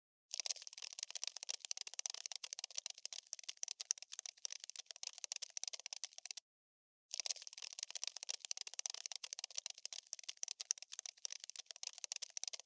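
Scratchy scuttling sound effect for a crawling cockroach: dense, rapid, high clicks and scrapes that stop dead for about half a second roughly six and a half seconds in, then start again.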